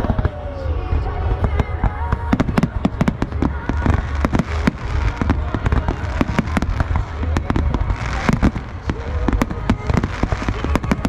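Fireworks display: many shells bursting in quick succession, sharp cracks packed closely together over a continuous deep rumble.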